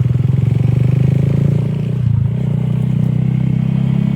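Vehicle engine running steadily with a fast, even pulse, the rhythm smoothing out a little about two seconds in.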